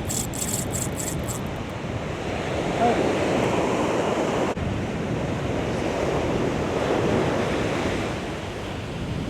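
Surf breaking on the beach, with wind on the microphone. A quick run of ticks sounds in the first second and a half.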